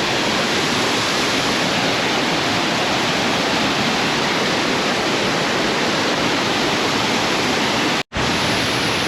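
Waterfall pouring close by: a loud, steady rush of falling water. The sound drops out for an instant about eight seconds in.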